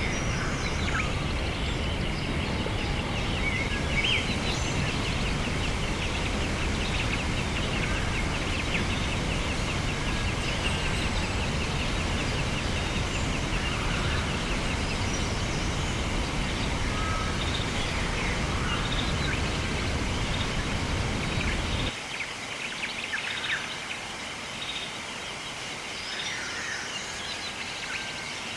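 Wild birds calling and trilling outdoors over a loud, low, steady rumble that cuts off abruptly about two-thirds of the way through, leaving only the birdsong.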